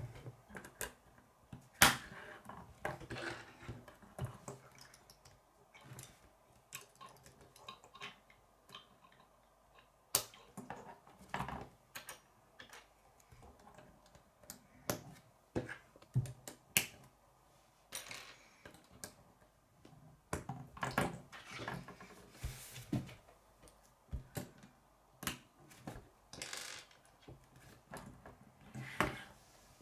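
Plastic K'nex rods and connectors clicking and snapping together as they are pushed into place by hand, in an irregular run of small clicks and rattles with a few louder snaps.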